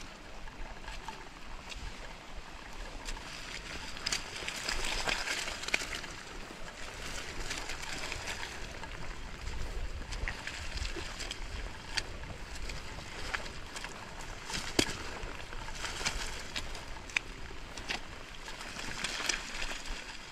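Rain falling with water running and sloshing: a steady wash of noise broken by many sharp taps and drips, louder about five seconds in and again near the end.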